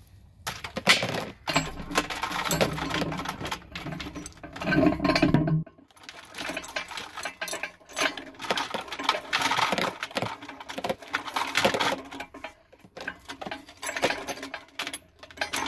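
Metal lifting chain clinking and rattling in rapid jingling runs, with short breaks about six seconds in and again near thirteen seconds.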